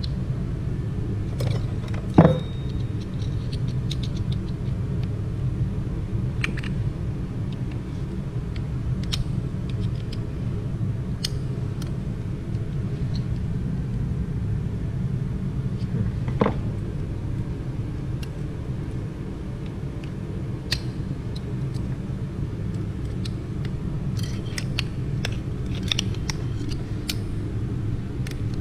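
A steady low rumble runs throughout. Over it come metal clicks and clinks from steel transmission clutch-pack parts being handled on a wooden bench: a sharp knock about two seconds in, another about sixteen seconds in, and a quick run of clicks near the end.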